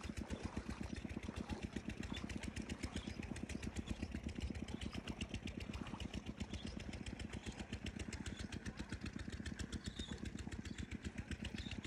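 A small engine running steadily with a rapid, even thumping beat.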